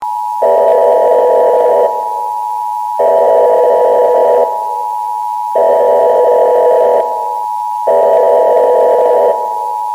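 Emergency Alert System-style alarm: a steady electronic two-tone attention signal near 1 kHz, with four repeated pulses of a lower, buzzing tone laid over it, each about a second and a half long.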